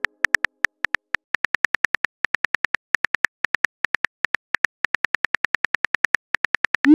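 Phone keyboard tap clicks, a quick steady run of about six taps a second as a text message is typed, ending with a short rising whoosh as the message is sent.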